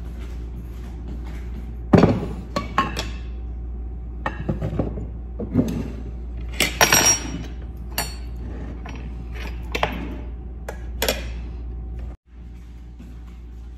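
Plates and dishes clinking and knocking as food is set down and arranged on a table: a series of separate clinks and knocks, spaced irregularly, with a loud cluster about seven seconds in.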